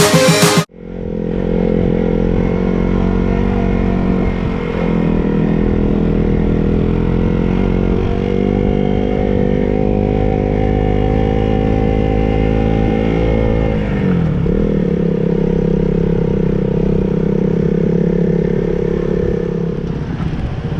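Motorcycle engine running under way, its pitch rising slowly for several seconds, then falling sharply about two thirds of the way through, as at a gear change or easing off the throttle, before running steadily again. A snatch of music ends in the first second.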